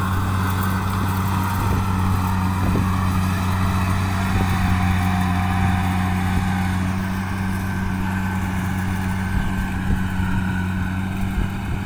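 Combine harvester engine running with a steady, even low hum.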